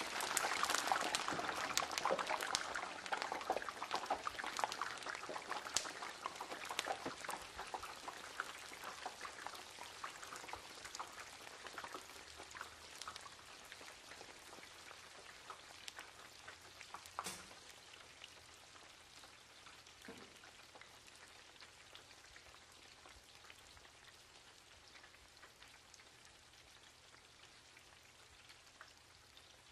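French fries sizzling in hot frying oil: dense crackling and spitting, loudest at first and gradually dying down, with an occasional louder pop.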